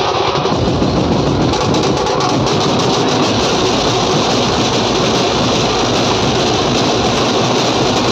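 Loud, continuous street-band drumming: a group of hand-held drums beaten with sticks together with a drum kit played through horn loudspeakers, a dense beat with no pause.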